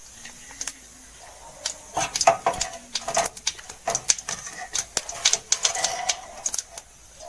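Cumin seeds frying in hot mustard oil in a kadai: irregular crackling and popping over a faint sizzle as the seeds temper.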